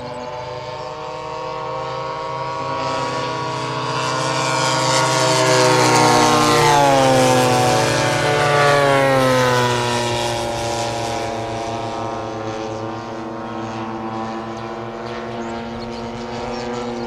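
Radio-controlled warbird model's propeller engine flying a low pass. The engine note swells to its loudest about six to nine seconds in, dropping in pitch as the plane goes by, then falls back to a steadier drone.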